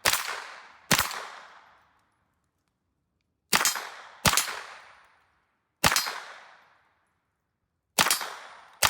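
Single shots from a .22 LR AR-15 pistol fitted with a CMMG conversion kit: seven sharp cracks at an uneven, aimed pace, some a second or less apart and others two seconds apart. Each shot echoes and fades over about a second.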